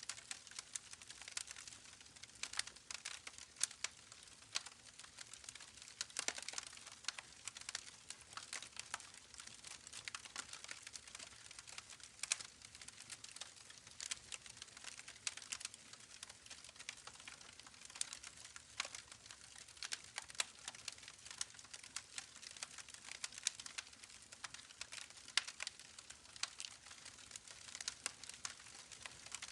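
Campfire crackling, with dense irregular sharp pops and snaps over a faint steady rush of creek water.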